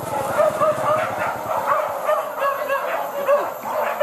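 A pack of hunting dogs barking and yelping together in a dense, continuous clamour, many overlapping voices, baying at a wild boar they have brought to bay.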